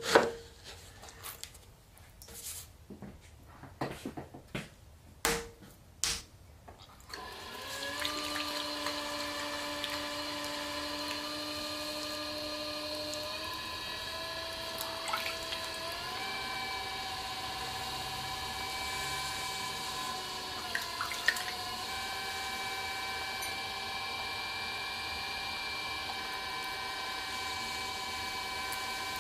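A few knocks and scrapes as a bat is set on a pottery wheel head, then the wheel's electric motor starts and hums steadily, its pitch stepping up a few times as the speed is raised. Wet clay squelches under the hands as it is centred.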